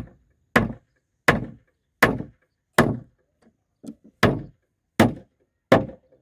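Hammer driving a nail into wooden planks: eight sharp blows about three-quarters of a second apart, with a short pause and two lighter taps a little past the middle.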